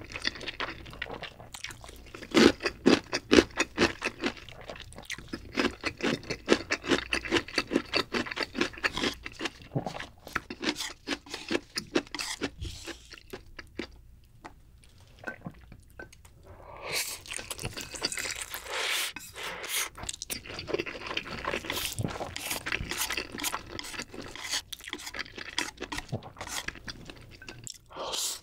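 Close-miked mouth sounds of a person eating jjapaghetti black bean noodles: rapid wet chewing clicks. After a quieter pause midway, a second mouthful comes in with louder slurping and chewing from about 17 s on.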